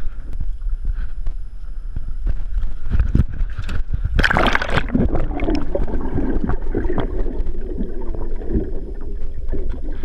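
Wind buffeting a handheld action camera's microphone over the sea, then a splash about four seconds in as the camera is plunged under the surface, followed by muffled underwater gurgling and bubbling.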